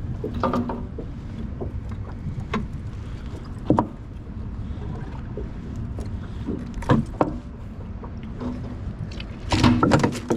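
Steady low rumble of river water and wind around a fishing boat, with a handful of sharp knocks and clicks from handling gear in the boat, a cluster of them near the end.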